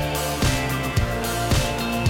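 Upbeat background music with a steady drum beat, about two beats a second, over held instrument notes.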